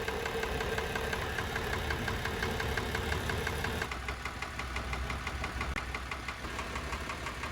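Isuzu 6HH1 six-cylinder diesel engine idling with a rapid, regular knock, the abnormal engine noise that is being diagnosed on this engine along with blow-by. The sound changes character about four seconds in.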